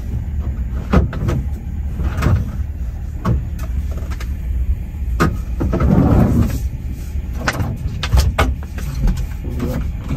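Scattered knocks, clicks and rustling as water bottles are rummaged for and taken out of a storage space in a truck cab, over a steady low engine rumble.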